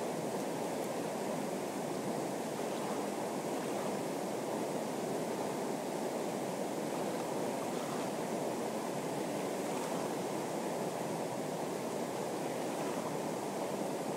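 Fast-flowing river rushing steadily over rapids, a constant even wash of water with no breaks.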